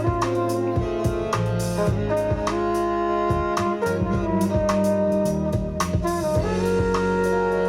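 Jazz recording with saxophone or other brass lead, bass and a busy drum kit playing, heard through hi-fi loudspeakers.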